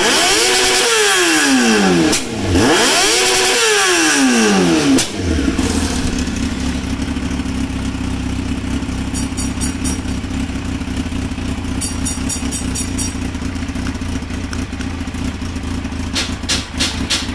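2003 Yamaha R6's inline-four engine being blipped, the revs climbing and falling back in quick throttle blips, then settling about five seconds in to a steady idle. A few sharp clicks near the end.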